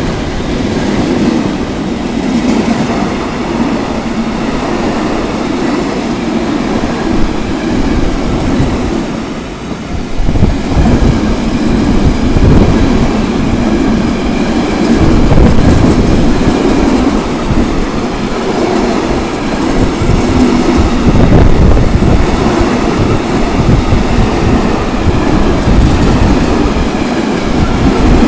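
Freight train of container flat wagons passing close by: a steady, loud rumble of wheels on the rails. The level dips briefly about nine seconds in, then rises again.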